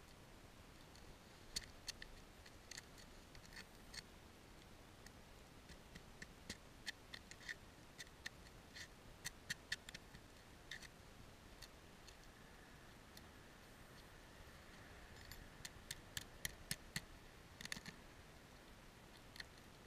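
A hammer tapping metal roof clips over a heating cable on asphalt shingles: irregular, sharp, light metallic clicks and taps, coming in two busy clusters with a lull between them.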